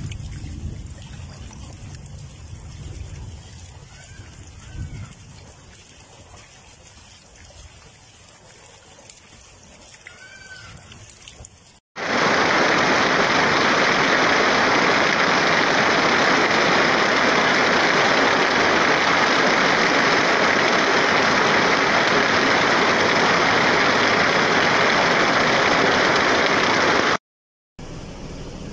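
Floodwater torrent rushing loudly and steadily through a street channel, starting suddenly about twelve seconds in and cutting off just before the end. Before it, a quieter stretch with a low rumble and a few faint high chirps.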